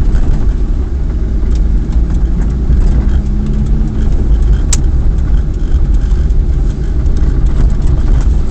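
Car engine and tyres heard from inside the cabin while driving slowly over a wet, potholed road: a loud low rumble with a steady engine tone in the first few seconds, and a single sharp click about halfway through.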